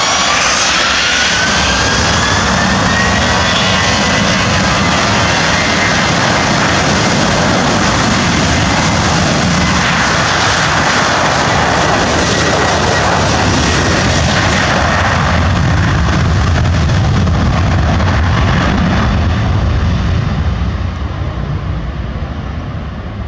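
Boeing 737-800's CFM56-7B turbofan engines spooling up to takeoff thrust: a whine rises in pitch over the first few seconds, then a loud, steady jet roar with deep rumble through the takeoff roll, fading over the last few seconds as the aircraft pulls away.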